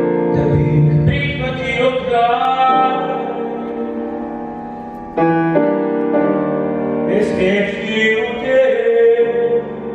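A man singing into a microphone with piano accompaniment; the piano strikes a new chord about five seconds in.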